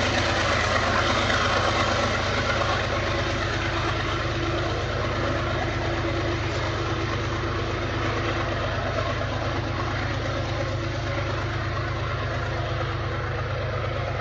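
Diesel-electric locomotives of a loaded iron-ore freight train working at full throttle (notch 8) up a steep grade: a steady, deep rumble easing slightly at first as the train moves away.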